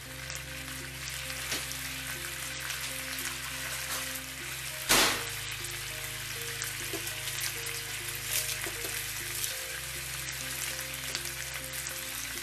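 Food sizzling steadily in a frying pan, with one brief, louder burst about five seconds in.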